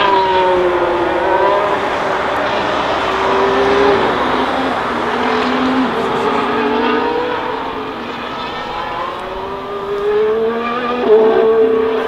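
A 2022 Formula 1 car's turbocharged V6 hybrid engine passing at racing speed. Its pitch falls in the first second, then climbs again in steps and is loudest about eleven seconds in.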